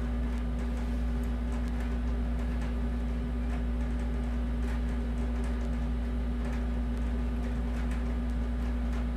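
A steady low electrical-sounding hum with faint, scattered ticks and no speech.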